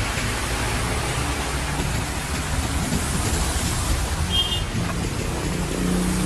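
Heavy rain and wind: a steady, loud hiss with a deep rumble underneath.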